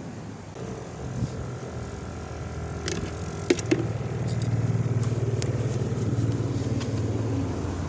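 A motor vehicle passing on the road: a low engine drone that builds about four seconds in and holds, with a few sharp clicks shortly before it.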